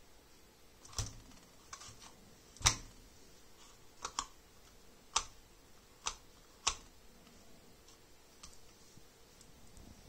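Light plastic clicks and taps from an Axial SCX24 micro RC rock crawler being pressed down and flexed by hand on a desk. There are about ten of them, unevenly spaced, and the loudest comes just under three seconds in.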